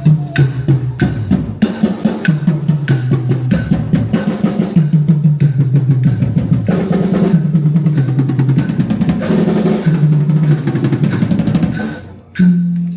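Drum kit played live over a backing track at 95 beats per minute: rapid snare and bass drum strokes over a steady bass line, with a brief break near the end.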